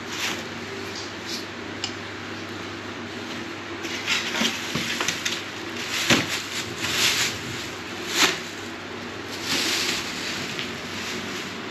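Plastic packing sheet rustling and crinkling as it is pulled out and handled, mostly in the second half, with a few sharp knocks and clinks of table parts in the cardboard box.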